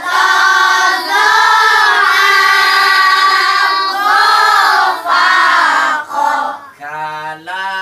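A group of children chanting together in unison in a sing-song recitation, with long held notes. Near the end a single lower voice chants alone in short stepped notes.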